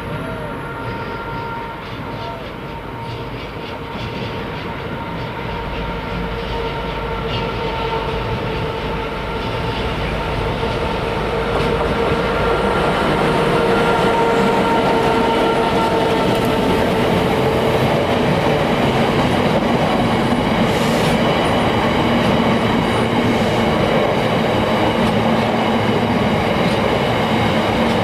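Class 66 diesel-hauled freight train approaching and passing, growing louder over the first half with a steady tone that fades, then wagons rolling by with their wheels running over the rails.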